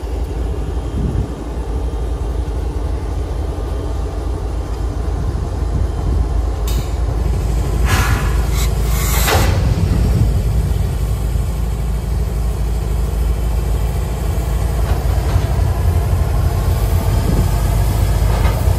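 Kansas City Southern diesel locomotive's engine running with a steady low rumble as it backs onto a covered hopper car. A little before the middle come sharp clanks, the couplers of locomotive and hopper car slamming together as they couple, and the engine keeps rumbling afterwards.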